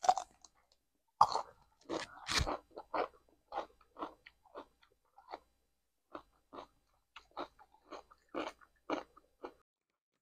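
Crisp bites into a whole raw cucumber, followed by crunchy chewing close to the microphone at about two chews a second. The loudest crunches come in the first couple of seconds, and the chewing stops shortly before the end.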